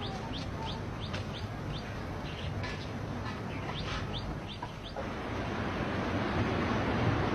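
Birds chirping in quick short calls, several a second, over a quiet yard. About five seconds in, this cuts sharply to the steady rush of a flowing river, which slowly grows louder.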